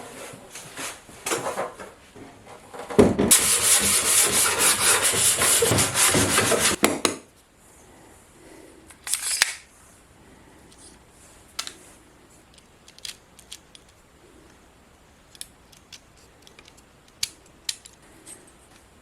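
Wood being rubbed or sanded by hand, with rough strokes building over the first seconds and then a loud, continuous stretch of rapid rubbing for about four seconds. After it come scattered light clicks and knocks of handling.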